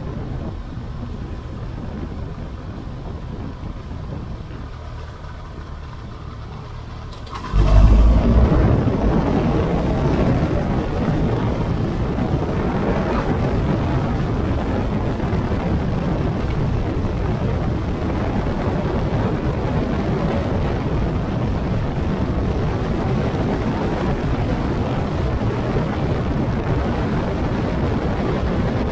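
Motorcycle riding, heard from a camera mounted on the bike: steady engine and wind noise. About seven and a half seconds in there is a sudden thump and the noise jumps louder and stays there.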